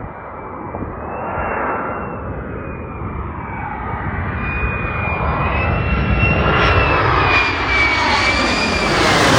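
Fighter jet engine approaching and passing low, growing steadily louder with a high, wavering whine over a deep rumble, loudest near the end as it goes by.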